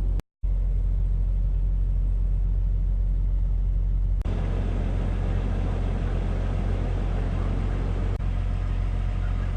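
Steady low engine and road rumble inside a vehicle's cabin. It cuts out for a split second near the start, with small clicks about four and eight seconds in, and sounds fuller after the first click.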